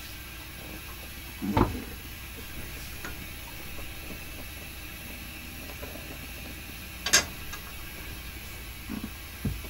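Cookware being handled on a galley gas stove: a dull knock about one and a half seconds in, a sharp clack about seven seconds in, and two softer knocks near the end, over a steady low hiss.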